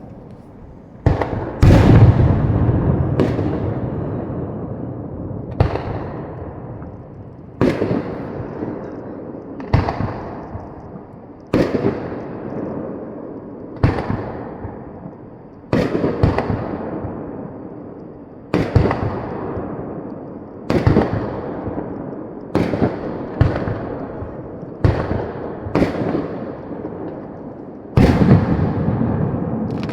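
Aerial fireworks shells bursting one after another, about fifteen sharp bangs spaced a second or two apart, each trailing off in a long rumbling echo. The loudest blasts come about two seconds in and again near the end.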